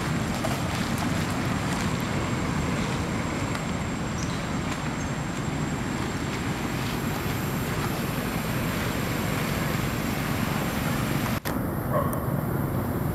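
Steady low rumble and hiss of outdoor background noise with no distinct events; it drops out for an instant near the end.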